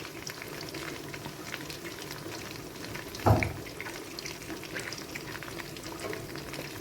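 Washed rice frying in hot oil in a pot, a steady sizzle with faint crackles. One dull knock about three seconds in.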